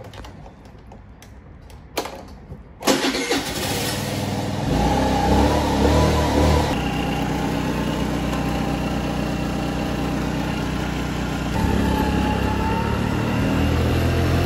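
Scooter engine starting up about three seconds in, just after a click, then running steadily and getting louder in steps as the scooter moves off.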